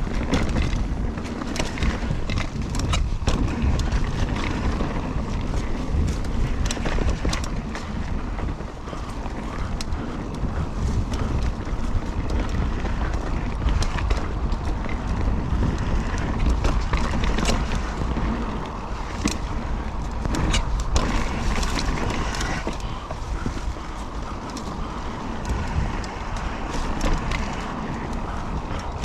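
Mountain bike ridden down a dirt trail: wind buffeting the action camera's microphone over a steady rumble of tyres on dirt, with frequent sharp clatters of chain and frame over bumps.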